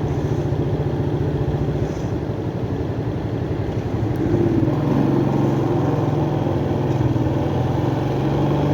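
Motorcycle engine running while riding. It gets louder and changes pitch about four seconds in.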